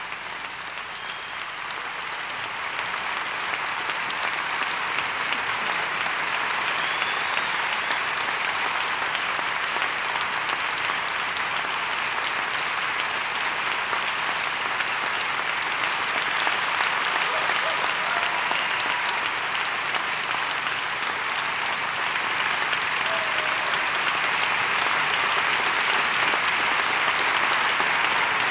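Theatre audience applauding steadily, growing louder a few seconds in and again near the end.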